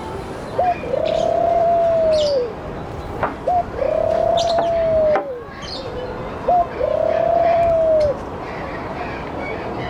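A dove cooing: three long, even coos about three seconds apart, each opened by a short rising note and trailing off with a slight downward slide. Faint chirps of other small birds are heard between them.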